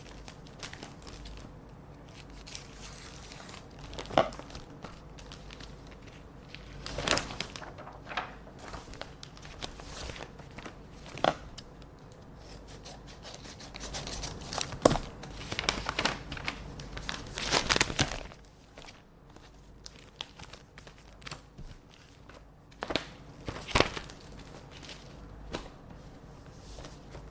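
Scissors snipping paper envelopes open, with the paper crinkling and tearing as the letters are handled, in irregular bursts of sharp snips and rustles with short pauses between.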